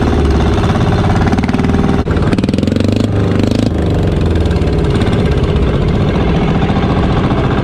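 Motorized outrigger boat's (bangka's) engine running steadily while the boat is under way at sea. It drops out for an instant about two seconds in.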